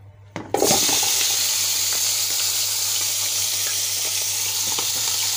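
A whole onion-stuffed duck lowered into hot oil in a pot: a brief clatter as it goes in about half a second in, then loud, steady sizzling of the oil around it.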